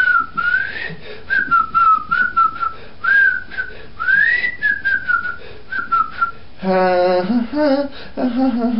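A person whistling a tune in short phrases, the pitch gliding up and down, over a string of light taps. About two-thirds of the way through, the whistling stops and a voice comes in on sustained sung notes.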